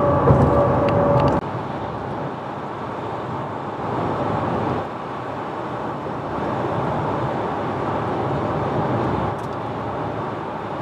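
Steady road and tyre noise heard from inside a vehicle cruising on a highway. A steady hum cuts off abruptly about a second and a half in, leaving the even rush of road noise.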